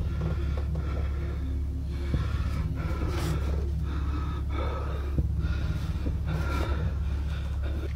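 A person breathing heavily close to the microphone, short breaths about once a second, over a steady low hum.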